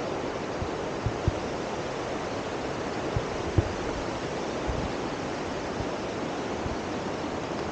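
Steady rushing outdoor noise, with a few brief low thumps scattered through the first five seconds, the strongest about three and a half seconds in.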